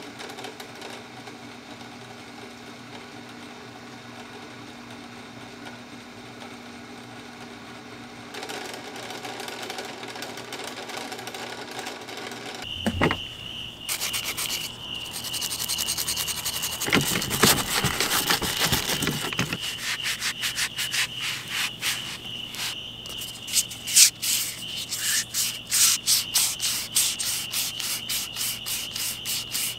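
Drill press spinning a wire wheel with a small part held against it: a steady motor hum that grows louder about eight seconds in. About thirteen seconds in it gives way to hand scrubbing of parts with a stiff brush, quick rhythmic rubbing strokes over a steady high-pitched trill.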